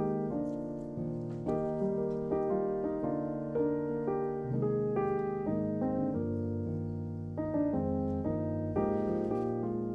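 Background music: soft piano playing a slow melody over chords, notes struck and left to fade.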